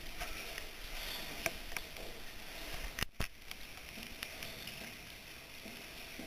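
Faint scattered clicks and scuffs over a steady hiss, broken by a brief gap about three seconds in.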